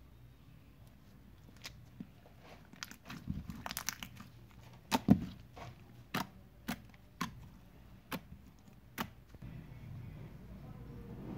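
Slime being handled: a burst of crackling, then a run of sharp pops and clicks about once every half second.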